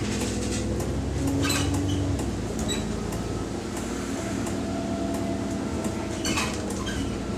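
Diesel bus engine running under way, heard from inside the bus, with scattered clicks and rattles from the vehicle. The engine note shifts and drops about two seconds in.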